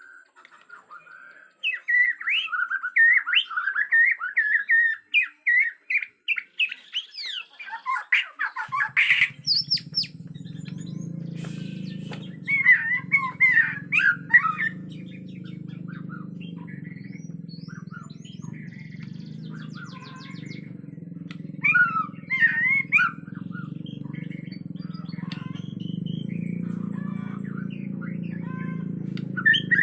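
Bornean white-rumped shama (murai batu) singing in fast, varied whistled phrases, in several bursts with pauses between them. From about a third of the way in, a steady low hum sits under the song.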